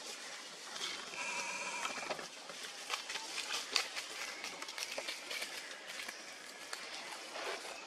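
Baby long-tailed macaque crying: a high cry about a second in that lasts about a second, then fainter cries, over scattered clicks and rustling.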